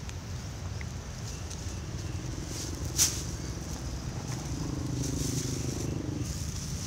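Leaves and a thin plastic bag rustling as wild Bidens pilosa shoots are picked by hand, with one sharp snap about three seconds in. A motor engine runs low in the background, its note clearest a little past the middle.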